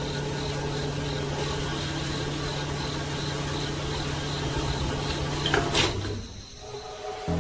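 A small electric motor humming steadily, then cutting off with a click about six seconds in.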